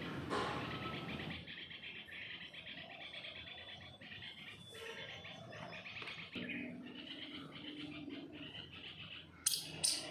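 Indian palm squirrels chirping in a rapid, continuous run of high chirps, the alarm-type call they give with tail flicking. Two sharp clicks come near the end.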